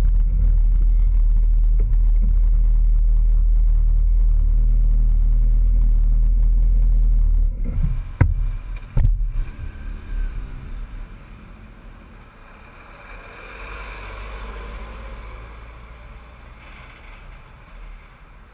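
Loud, steady low rumble of vehicle engines and road noise beside a lorry in slow traffic. It drops away sharply about seven and a half seconds in, with two sharp knocks soon after, leaving quieter traffic noise that swells briefly and fades.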